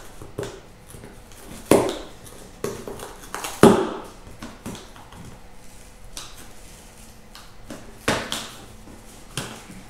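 A stapled cardboard box being pried and torn open, its staples pulling free: a handful of sharp cracks and snaps, the loudest about three and a half seconds in, with others near two, eight and nine seconds.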